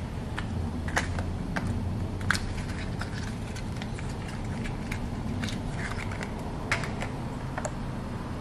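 Small electrical components being handled and set down on a steel mounting plate: irregular light clicks and taps, a few sharper than the rest, over a steady low hum.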